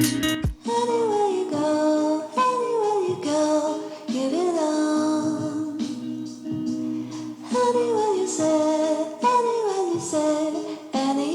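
Background music: a song with a high, light singing voice over a steady sustained accompaniment, sung in phrases that fall in pitch.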